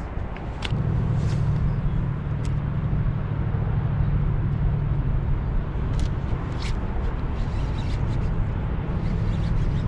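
Boat motor running with a steady low hum that comes on about a second in, with a few sharp clicks and knocks over it.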